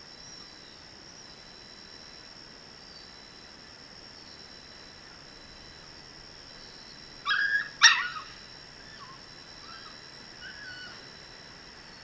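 Dog confined in a wire cage trap giving two short, sharp, high yelps about seven seconds in, the second the loudest, followed by a few faint whimpers.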